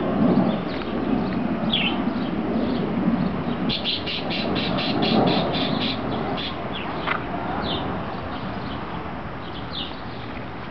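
Small birds chirping, with a quick run of about a dozen sharp chirps a few seconds in, over a rustle of foliage and handling noise that is loudest at first and then fades.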